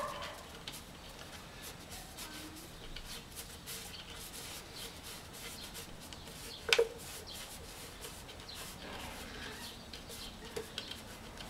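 Small cartridge gas torch hissing faintly as it heats the cut neck of a plastic water bottle to soften it, with one sharp click about seven seconds in.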